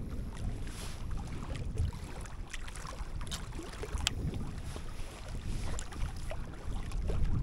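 Wind buffeting the microphone as a steady, uneven low rumble, with scattered small clicks over it.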